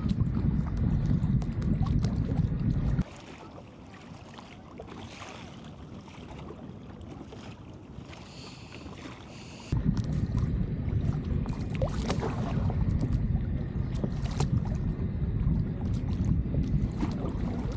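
Wind buffeting the microphone as a low rumble, with light splashes from the kayak paddle in the water. The rumble cuts off suddenly about three seconds in and comes back near ten seconds, leaving a quieter stretch of water noise between.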